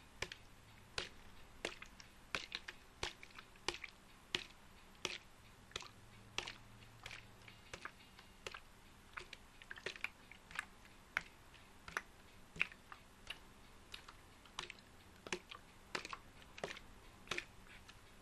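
Keys of a computer keyboard being tapped: short, sharp clicks at an uneven pace of roughly two a second, over a faint steady low hum.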